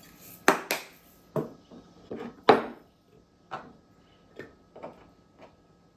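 Cucumber spears knocking and clinking against glass jars as they are packed in: a string of about ten short, uneven knocks, the loudest about half a second and two and a half seconds in.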